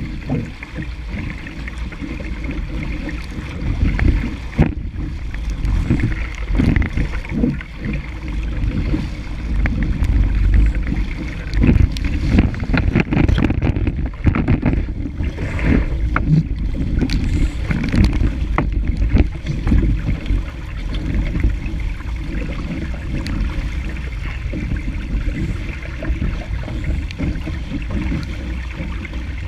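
Wind buffeting a deck-mounted camera's microphone on a single-handed sailing dinghy under way, a heavy gusting rumble, over water rushing and slapping along the hull, with scattered splashes of spray.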